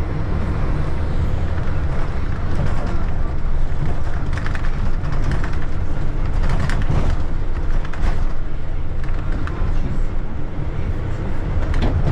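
Steady low rumble of a running vehicle, with a few faint knocks and rattles on top.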